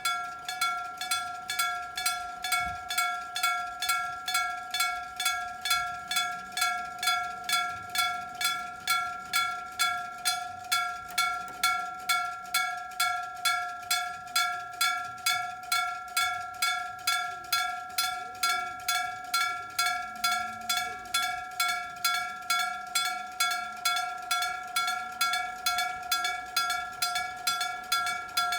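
Electric-bell (denrei-type) railway level crossing warning bell ringing steadily, about two and a half strikes a second. Its clanging signals that a train is approaching the crossing.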